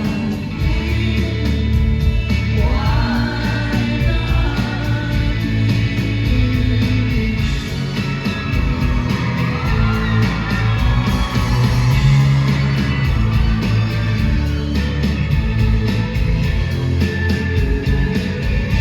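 Indie rock song performed live by a band, a woman singing the lead over a heavy bass line and a steady drum beat.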